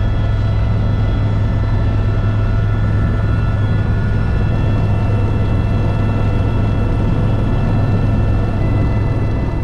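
Eurocopter EC130 helicopter running, a steady loud drone of the rotors and turboshaft engine with several high steady whines on top.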